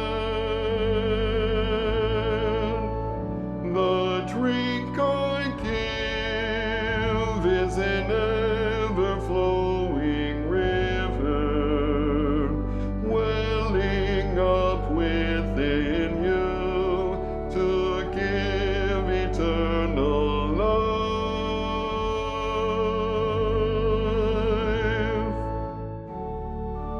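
Choral hymn music: a singer with heavy vibrato over sustained low accompaniment, the voices thinning near the end as the verse closes.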